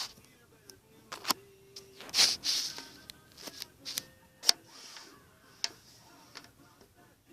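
Small plastic buckets and a soap bottle being handled and set down on a table: a handful of sharp knocks and clatters with brief rustles between them. Faint short tones sound in the background.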